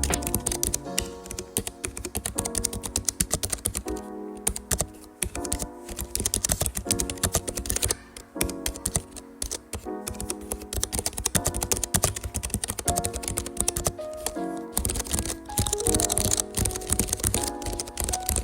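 Fast, continuous typing on a Keychron K3 low-profile mechanical keyboard, a dense run of key clicks with a couple of brief pauses, over background music.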